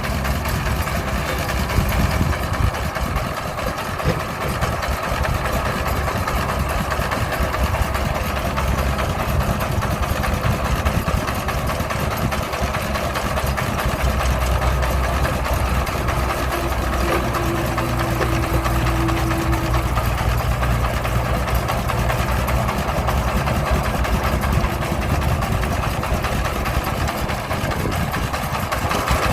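Heavy machine's engine running steadily, with a deep hum that grows stronger for a few seconds past the middle.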